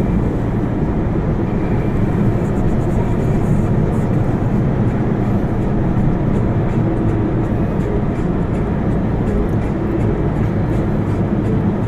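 Waterfall, a loud, steady rush of falling water.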